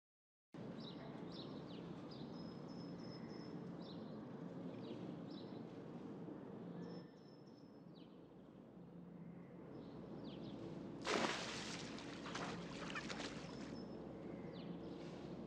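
Outdoor ambience with small birds chirping. About eleven seconds in comes a sudden splash in a swimming pool, followed by a few seconds of splashing and scrambling, as a cat falls into the water and gets out.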